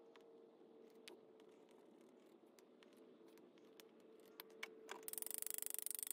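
Faint light metallic clicks and taps as steel pieces and a small steel canister are handled on a steel workbench. About five seconds in, a louder hiss starts that buzzes with a rapid, even pulse.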